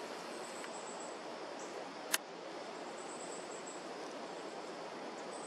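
Outdoor ambience: a steady hiss with a faint, high insect buzz that comes and goes two or three times. There is a single sharp click about two seconds in.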